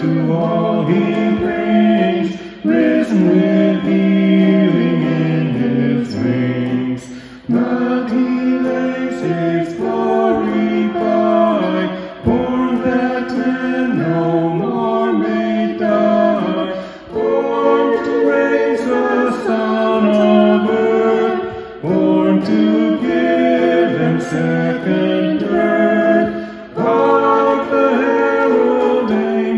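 A man and a woman singing with electric guitar accompaniment, in phrases of about five seconds with brief breaks between them.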